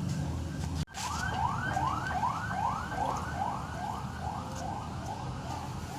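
A siren wailing in quick rising-and-falling sweeps, about two to three a second, starting about a second in after a brief cut in the sound, over a steady low rumble.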